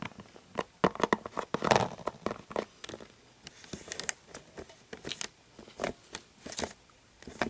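Small plastic toy figures and props being handled and moved: irregular light clicks, taps and rustles.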